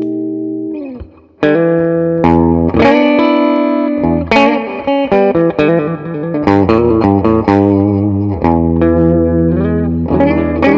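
Electric guitar, a 1982 Burny Les Paul, played through an amp with a little overdrive. A held chord rings out and dies away about a second in; after a brief gap comes a phrase of picked chords and single notes.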